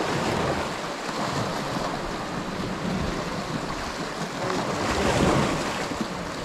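Sea waves washing and breaking against a rocky shore, with wind on the microphone; one wave surges louder about five seconds in.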